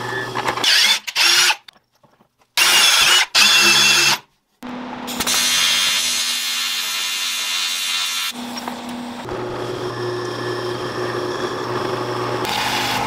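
A drill press runs as it cuts into an aluminium part clamped in its vise, then short edited bursts of louder tool noise with brief cut-outs to silence. A TIG welding arc then hisses with a low steady buzz for about four seconds. Near the end the drill press hum comes back.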